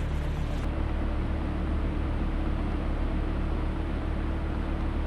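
A fishing boat's engine running under way: a steady low drone with a constant hum and a hiss of noise over it.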